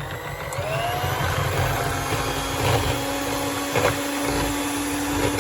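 Electric mixer whipping cold cream in a bowl, its motor whine rising as it comes up to speed in the first second, then running steadily.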